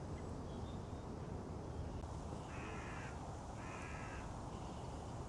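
A crow cawing twice, two harsh calls about a second apart, over a steady low rumble.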